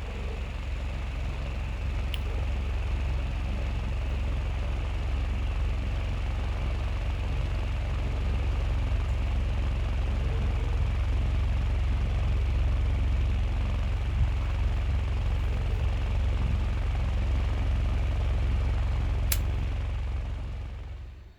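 Small battery-operated fan running steadily, its motor hum mixed with a low rumble of air blowing across the microphone; a click near the end, then it winds down and stops.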